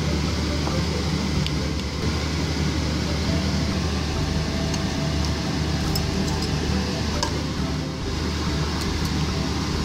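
Steady low hum under faint background music, with a few light clinks of a knife and wire whisk against a glass dish and a metal pan.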